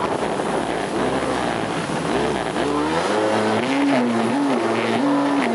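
Jet ski engine running at speed with rushing water and wind noise. About halfway through its pitch climbs, then swings up and down several times.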